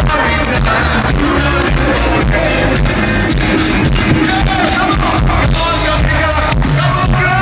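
Live rock band with electric guitars, bass and drums playing a song with a steady beat, and a man singing lead into a microphone over it.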